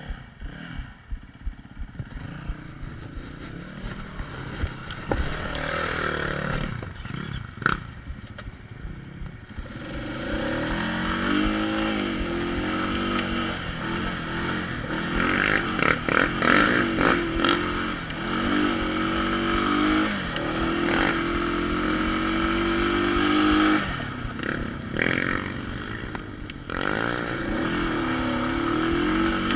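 Honda ATV engine running quietly with a rapid ticking, then from about ten seconds in pulled hard under throttle, its pitch climbing and dropping repeatedly as the quad rides a rough trail. The throttle eases off briefly near the end before it revs up again.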